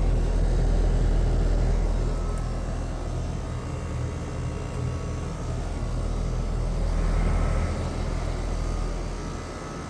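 Carrier Performance and Sentry outdoor air-conditioner condenser units running: a steady low hum with fan noise over it, swelling and easing in loudness.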